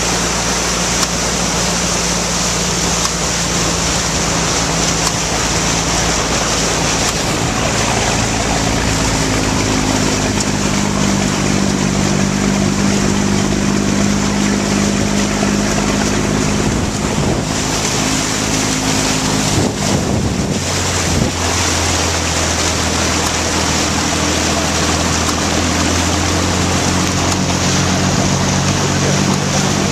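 A vehicle's engine runs steadily while it ploughs through deep floodwater. A constant rush and splash of water is thrown up by the front wheel. The engine note changes about eight seconds in and again about twenty seconds in.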